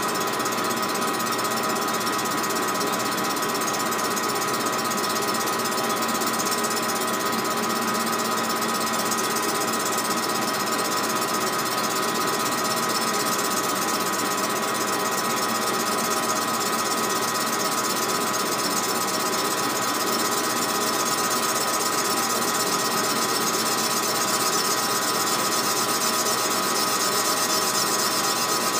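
Small benchtop metal lathe running steadily as it turns an aftermarket Stihl MS 660 chainsaw cylinder held in the chuck, with a steady high whine from the machine over a continuous mechanical rattle.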